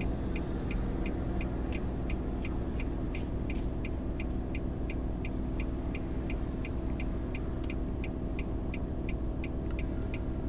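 Car's turn-signal indicator ticking steadily, about three ticks a second, over the low steady hum of the engine idling with the car stopped.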